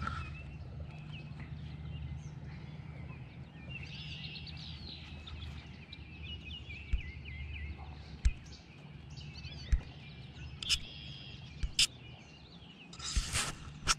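Outdoor ambience of birds chirping and singing in many short calls, over a low steady hum. A handful of sharp clicks and knocks in the second half are the loudest sounds.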